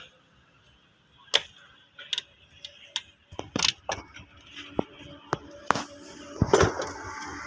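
Sharp clicks and knocks of plastic as the air filter housing lid is unclipped and lifted off a Toyota Prius engine: about a dozen separate clicks, the loudest about a second in and near the end. A hiss of background noise rises near the end.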